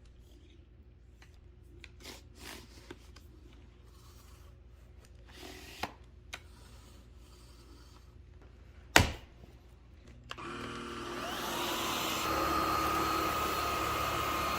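Light handling clicks and rubbing with one sharp click about nine seconds in; then, about ten seconds in, the Fabuletta cordless stick vacuum's brushless motor starts and runs with a steady whine, stepping up in loudness about two seconds later.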